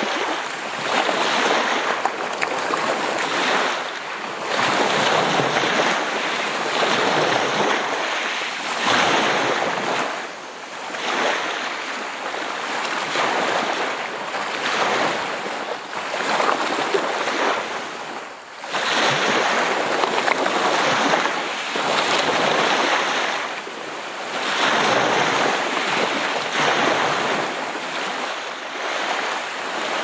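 Gentle sea waves breaking and washing up the shore: a continuous rush of surf that swells and ebbs every few seconds.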